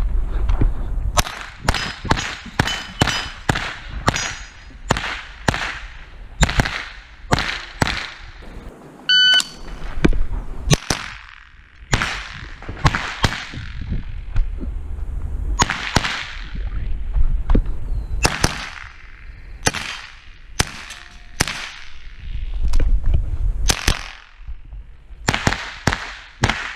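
Sig Sauer 522 SWAT semi-automatic .22 LR carbine firing dozens of shots in quick, irregular strings, each a sharp crack with a short echo. Steel targets ring faintly when hit, with one brief clear ring about nine seconds in.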